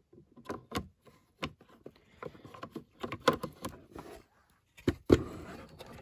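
Hard plastic overhead console and switch panel being handled and turned over by hand: a scatter of light clicks and knocks, the loudest about five seconds in, followed by faint rustling.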